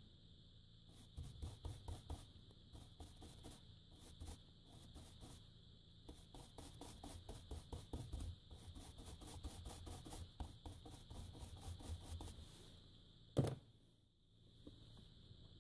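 Quick rubbing or scrubbing strokes worked by hand across a TV's T-con circuit board, several a second, followed by one sharp knock near the end.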